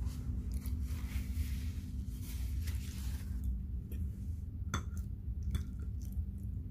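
Metal fork clinking and scraping on a ceramic plate while cutting fried banana slices, with one sharp clink about two-thirds of the way in. A steady low hum runs underneath.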